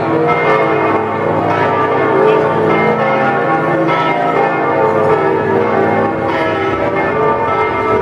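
The bells of St Mark's Campanile in Venice ringing together in a full peal. Several bells are swinging and striking one over another, so the strokes overlap in a dense ring that never dies away.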